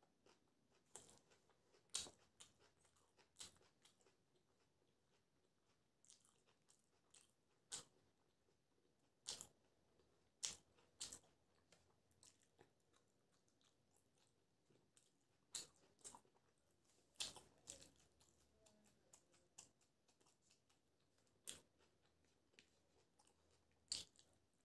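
Close-up eating sounds: about a dozen irregular crisp crunches and snaps as raw green chillies are broken by hand and bitten, with soft chewing between.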